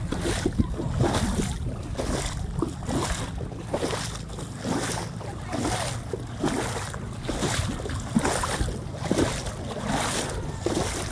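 Water splashing and lapping around a kayak in a steady repeating rhythm, like paddle strokes, over a low wind rumble on the microphone.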